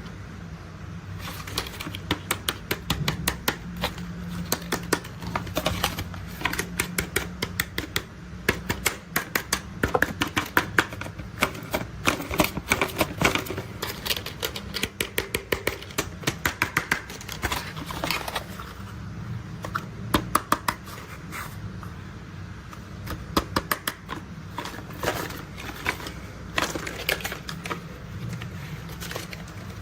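Rapid tapping and clicking on toy construction vehicles, in quick runs of many taps with short pauses between, over a steady low hum.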